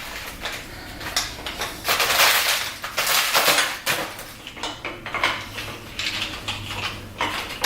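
Metal parts of a Totem Pole bike rack clanking and rattling as they are handled and fitted together: an irregular series of knocks and scrapes, loudest about two to three and a half seconds in.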